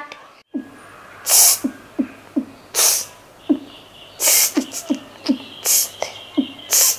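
A child beatboxing: short low vocal kick-drum thumps alternating with hissing snare-like sounds that come about every second and a half, in a steady beat.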